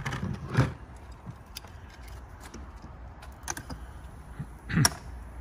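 Clicks and knocks of hand tools being handled, with metal clacks as water pump pliers are fitted onto the brass air vent of a frost-free hose bib. The sharpest knocks come just after the start and near the end.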